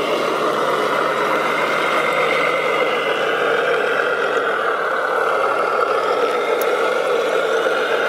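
Radio-controlled Volvo articulated dump truck model whirring steadily as its tipper body is raised on hydraulic rams.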